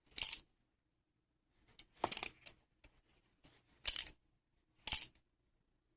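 Kershaw Lucha balisong (butterfly knife) being flipped, its handles clacking shut against each other and the blade's tang in short metallic clacks, about four times with pauses between.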